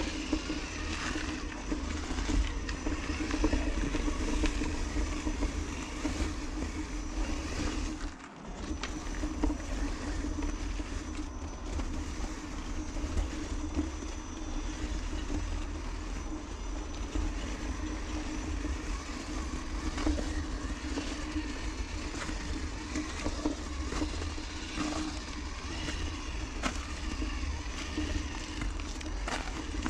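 Traxxas TRX-4 RC crawler's electric motor and drivetrain whining steadily as it drives over gravel, with a low rumble. The drive sound drops out briefly about eight seconds in.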